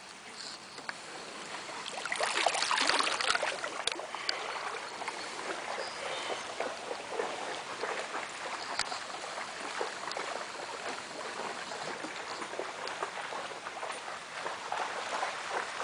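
Water splashing and sloshing in shallow floodwater, louder for a couple of seconds about two seconds in, then a steady lapping flecked with small splashes.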